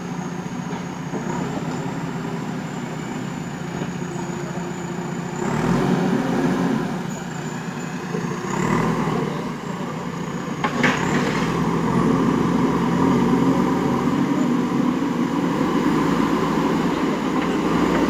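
JCB backhoe loader's diesel engine running and revving up at times as the machine works its hydraulics and moves off, with a single sharp clank about eleven seconds in.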